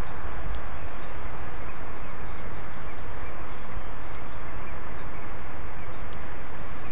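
Steady, loud rushing noise with a heavy low rumble. Faint, short, high cheeps of Eurasian blackbird nestlings begging come and go over it.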